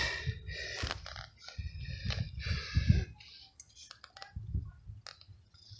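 Hand tap being turned under heavy pressure to cut M8 threads into the engine's mount hole: irregular scraping and creaking from the tap and tap handle. It grows quieter after about three seconds, with a few sharp clicks near the end.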